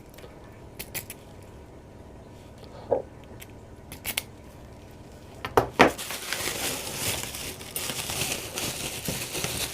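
Small clicks and knocks of locks and packaging being handled and set down, the loudest pair about five and a half seconds in. Then a continuous crinkling rustle, like wrapping or a parcel's packing being rummaged through.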